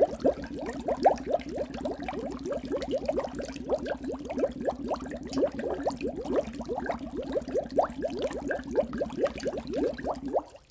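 Water bubbling in a rapid, continuous stream of bubbles, each a short upward-gliding blip, about five or six a second. It stops abruptly near the end.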